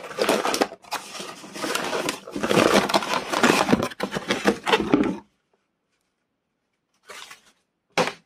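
Cardboard box flaps and inserts rustling and scraping as they are pulled open, with the fryer's plastic wrapping crinkling. The sound cuts off abruptly about five seconds in, and one short burst of the same comes near the end.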